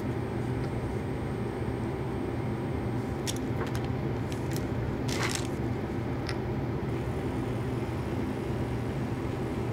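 Steady hum of the I-Extruder solder paste dispenser's motor driving its lead screw, with a few brief rustles of the handheld dispenser being handled about three and five seconds in.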